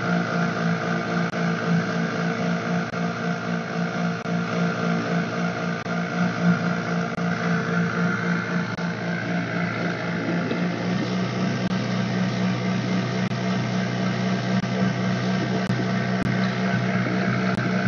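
Small fishing boat's motor running steadily under way, with wind and water noise around it. About ten seconds in its note gets fuller as a lower tone comes in.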